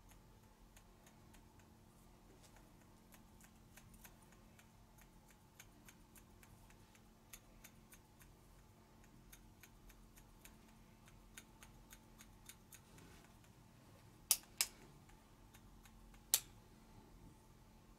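Faint, irregular small clicks and ticks, with three sharper clicks near the end: two in quick succession, then one more about two seconds later.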